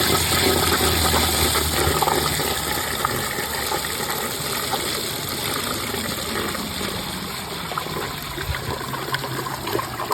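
Vortens Vienna round toilet flushing with its tank filled to mid level: water rushes loudly into the bowl and down the trapway, then slowly tapers off, with gurgling splashes near the end. The rim jets on one side are plugged, so the bowl swirls one way.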